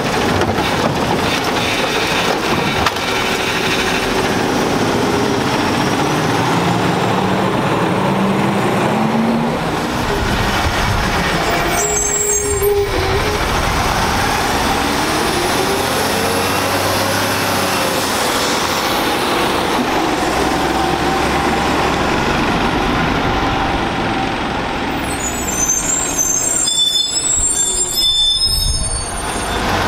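Autocar side-loading garbage truck running and pulling away, its engine revving up in rising sweeps as it gets moving.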